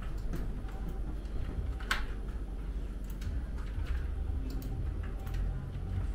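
Scattered clicks and taps of a computer keyboard and mouse, one sharper click about two seconds in, over a steady low rumble.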